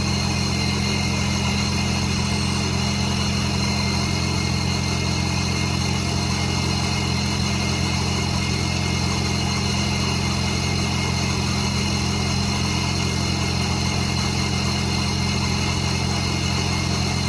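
The 3.6-litre Pentastar V6 of a 2017 Dodge Charger idling steadily on its first startup with a newly fitted Ripp supercharger, run only briefly before being checked for leaks.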